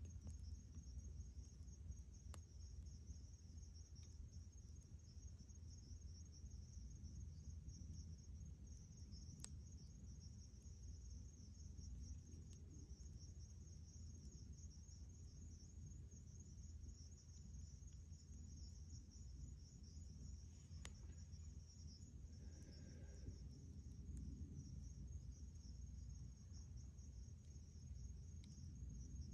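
Faint chorus of night insects: a steady high-pitched trill over a low rumble, with a few faint clicks.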